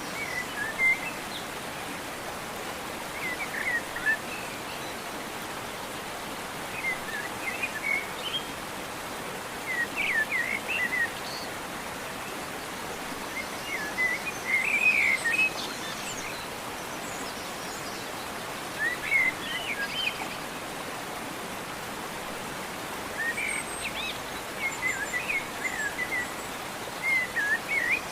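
A songbird singing short phrases of quick chirping notes, repeated about every three to four seconds, over a steady background hiss.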